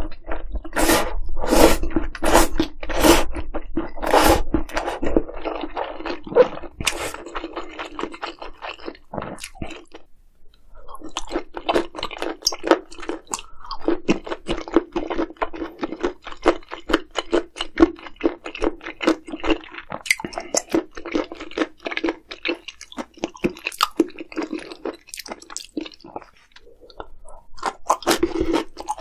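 Close-miked chewing and crunching of food, with several loud crunchy bites in the first few seconds. There is a short pause about ten seconds in, then steady wet chewing.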